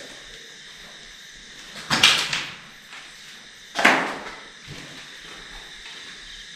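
Two loud bangs about two seconds apart, each trailing off in a short echo.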